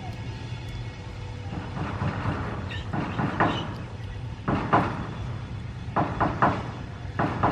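A knife cutting through soaked, softened kapok tree gum held in the hand over a bowl of water: short scraping cuts in quick clusters, several close together about 6 seconds in, over a steady low hum.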